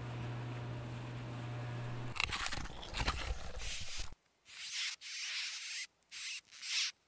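A low steady hum for about two seconds, then rough scraping, and from about four seconds in several separate short scratching strokes with silent gaps between them: tally marks being scratched onto a hard surface.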